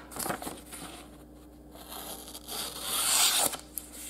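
Factory-edge D2 steel blade of a Ganzo Firebird FH41 folding knife slicing through a sheet of paper, the paper hissing and rustling as it is cut. The cut is loudest about three seconds in.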